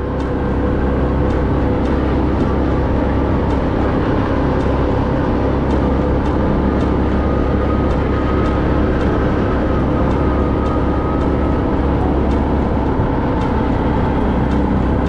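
Side-by-side UTV running steadily on a trail ride, its engine drone holding an even level with a few faint clicks and rattles.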